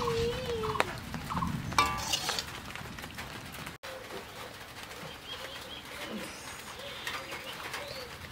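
Doves cooing over and over in low, wavering hoots. A metal ladle clinks and scrapes against the metal wok in the first two seconds, which is the loudest part.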